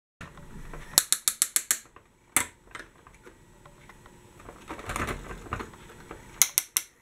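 Sharp plastic clicks from a toy articulated trolleybus being handled, its trolley poles moved by hand: a quick run of about six clicks a little after a second in, a single click, then a few more clicks near the end.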